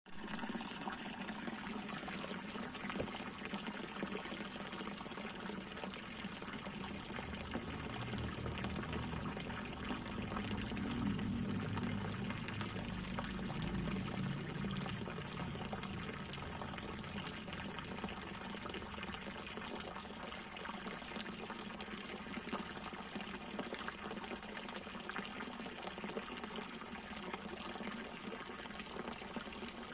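Water running and gushing steadily in a fish pond, a continuous splashing pour that grows a little fuller for several seconds about a third of the way in.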